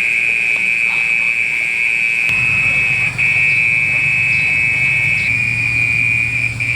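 Insects buzzing in one loud, steady, high-pitched drone, with two brief breaks: about three seconds in and near the end.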